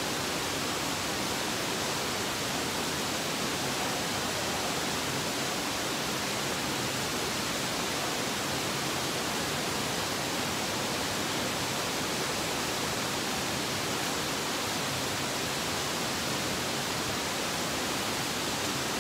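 A steady, even rushing noise that does not change, with no distinct events in it.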